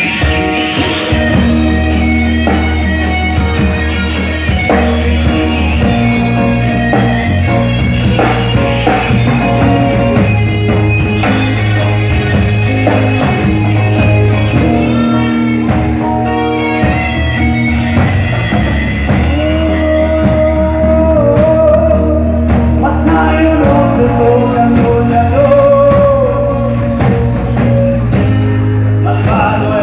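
Live rock band playing: electric guitars, bass guitar, drum kit and keyboard, with a wavering lead melody in the second half.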